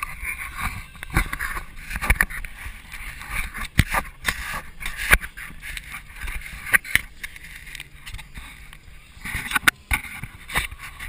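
Irregular knocks and rubbing of handling noise on the camera, over a faint steady murmur.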